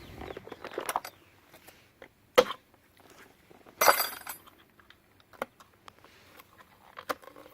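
A motor-oil bottle being opened and handled: scattered clicks and small knocks, with two sharp, louder clinks about two and a half and four seconds in.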